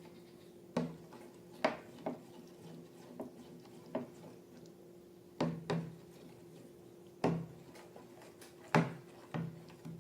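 About a dozen sharp taps and knocks of objects being handled on a hard surface, unevenly spaced, over a steady low hum.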